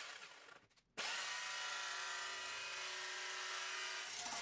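Handheld jigsaw cutting through sheet aluminum, a steady power-tool whine that starts abruptly about a second in after a brief gap. Near the end it gives way to a different tool's steady whine.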